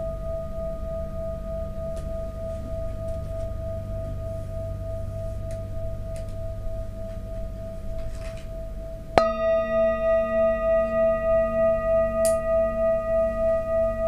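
Large metal singing bowl ringing with a steady tone. About nine seconds in it is struck with a wooden mallet and rings out fuller, several tones together, with a slow pulsing waver about twice a second.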